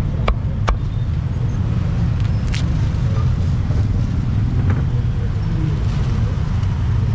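Two sharp chops of a cleaver on a wooden chopping block within the first second, then a fainter knock a couple of seconds later, over a steady low background rumble.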